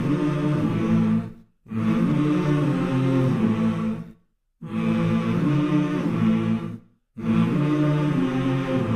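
Music: a low, chant-like vocal phrase repeated, each phrase cut off by a brief silence, three breaks in all.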